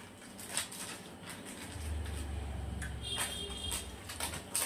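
Soft eating sounds from people sucking on ice lollies, with plastic wrappers rustling, heard as scattered short crackles. A low rumble comes up for about two seconds in the middle.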